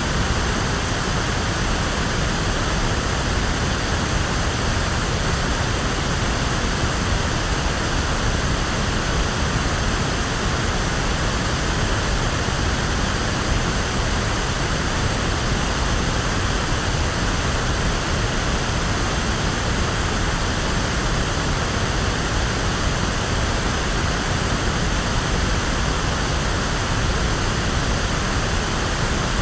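Electronically generated pink noise: a steady, even hiss with a deep rumble, like a waterfall or heavy rain.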